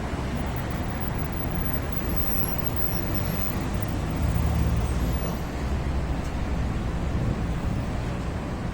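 Road traffic going by: a steady rumble of passing cars, with one vehicle passing louder about four seconds in.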